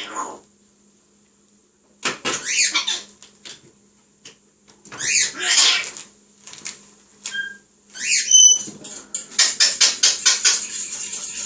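African grey parrot calling in bursts: squawky, gliding chatter, a few short pure whistles about seven and eight seconds in, and a fast run of clicking chatter near the end.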